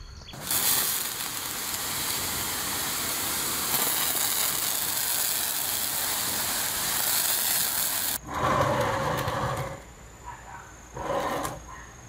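Pressurised water jetting from the wand of a homemade jerrycan pressure sprayer, pumped up with a hand air pump, as a steady hiss that cuts off suddenly about eight seconds in. A few shorter, softer noises follow.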